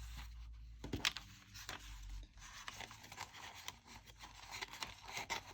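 Scissors snipping through a paper sticker sheet, with the paper rustling and crinkling as it is handled; a few sharp snips stand out, the loudest about a second in.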